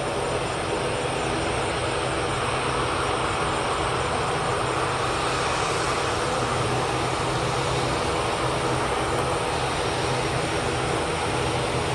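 Airbus A320-200's jet engines running at taxi power as the airliner rolls along the taxiway: a steady roar with a low hum and a few steady tones beneath.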